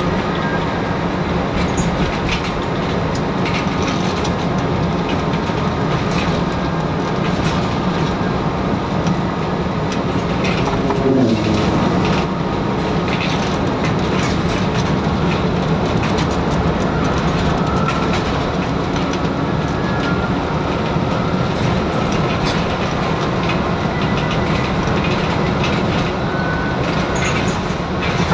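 Scania N94UD double-decker bus under way, heard from the upper deck: the steady drone of its 9-litre five-cylinder diesel and road noise, with frequent rattles from the body and fittings. A falling engine note comes about eleven seconds in.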